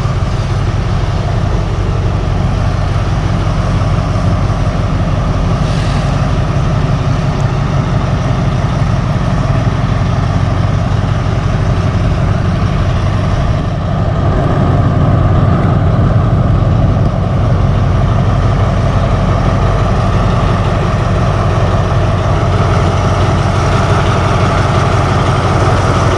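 A vehicle engine running steadily, a low rumble with street noise, getting a little louder about halfway through.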